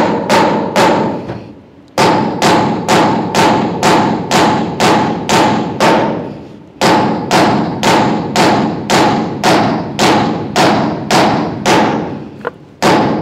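A 2 kg hammer striking a steel shear stud welded through metal deck sheet onto a beam, bending it over as a bend test of the stud weld. Repeated sharp ringing metal blows, about three a second, with a couple of short pauses.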